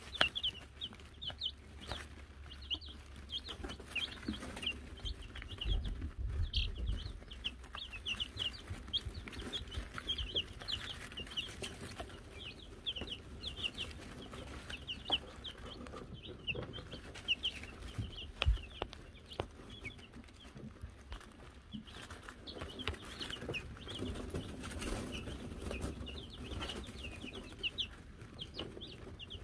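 A brood of Wyandotte chicks peeping continuously: many short, high peeps in quick runs, with a few scattered soft taps.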